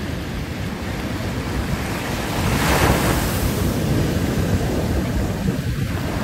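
Ocean surf breaking over a rocky reef ledge, with one big wave crashing and throwing up spray about halfway through. Wind buffets the microphone.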